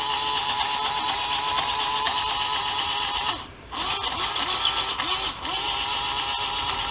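370-size electric motor driving the all-metal gearbox and drive shafts of a WPL C24 RC truck, running unloaded with the wheels off the ground: a steady, noisy gear whine. It cuts out briefly a little past halfway, then runs again.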